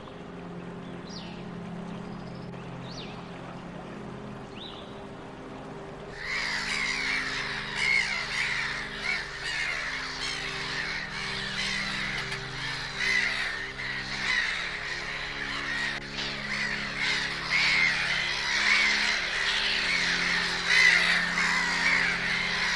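A few faint, thin bird chirps, then about six seconds in a flock of birds abruptly starts calling all at once, a dense, harsh chorus that continues throughout, over a soft steady low music drone.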